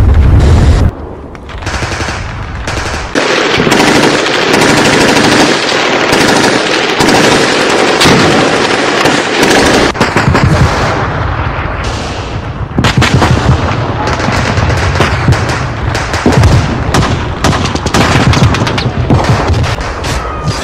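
Battle sound effects: dense, continuous machine-gun and rifle fire with occasional heavier booms, laid over the pictures rather than coming from the parked motorcycles.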